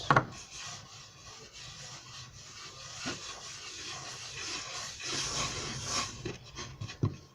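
Hands kneading and rubbing homemade flour dough against a tabletop: a continuous uneven rubbing noise that swells about five seconds in, with a few light knocks.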